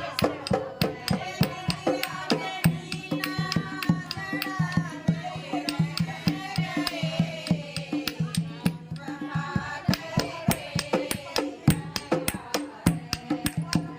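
Music with a steady, quick percussion beat and a melody line over it, in a folk or devotional style.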